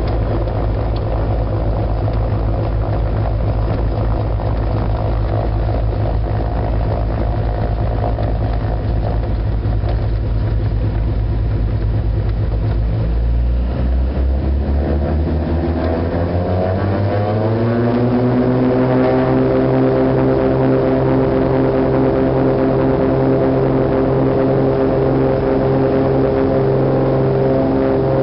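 A Beechcraft Baron's twin piston engines and propellers heard from inside the cabin. They run at low power, then are throttled up about 13 seconds in, the pitch rising over several seconds. They settle into a steady, louder full-power note for the takeoff roll.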